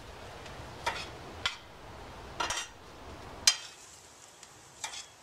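A metal slotted spoon stirring in a stainless steel skillet, clinking and scraping against the pan about five times, over a faint sizzle of shrimp, onion, bell pepper and garlic sautéing in butter.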